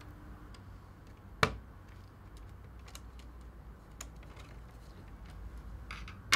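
Small plastic clicks and taps as the 40mm fan's power cable plug is handled and pushed onto its connector on the motherboard, with a sharp louder click about a second and a half in and another at the very end.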